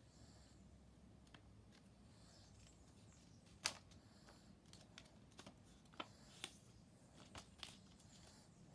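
A sheet of paper being folded and creased by hand: faint handling with a handful of short, sharp clicks and taps, the loudest a little over a third of the way in, several more near the end.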